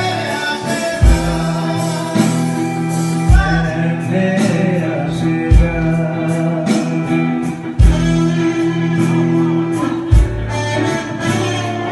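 A live band playing: two electric guitars over a drum kit with a kick drum thumping about once a second and cymbal strokes, and a man singing into a handheld microphone.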